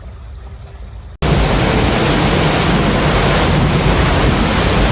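A faint hiss, then about a second in a loud, steady rushing noise cuts in abruptly and carries on unbroken.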